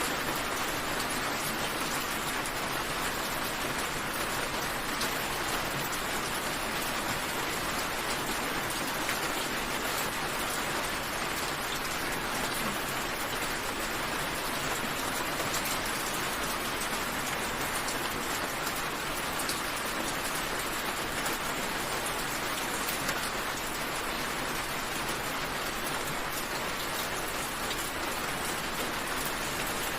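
Steady rain falling, a constant hiss of drops with faint scattered patters on leaves and surfaces.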